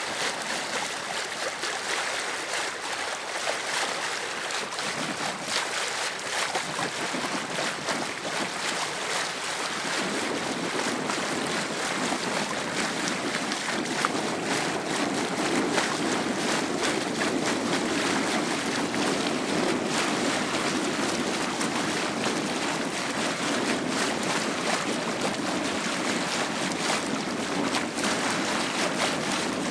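Sea water lapping and splashing, with wind on the microphone. A steady low rumble joins about ten seconds in.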